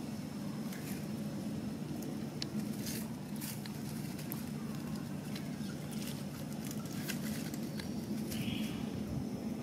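Outdoor ambience: a steady low hum with scattered light clicks and rustles throughout, and a brief hiss-like rustle near the end.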